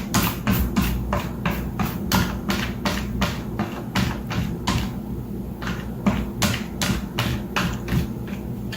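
Background music with a steady beat of sharp ticks, about four a second, over a low sustained bass.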